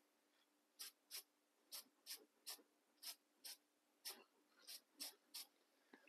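Aerosol can of matte clear acrylic coating sprayed in a series of short taps: about a dozen faint, brief hisses, roughly two a second.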